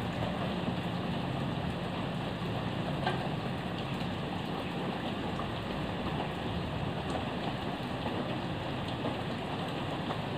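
Steady, fairly heavy rain falling, with scattered drop taps. A low steady hum sits under it and fades out about halfway through.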